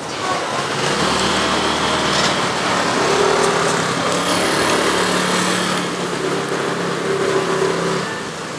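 A small engine running steadily, starting about a second in and dropping away near the end, over general street noise.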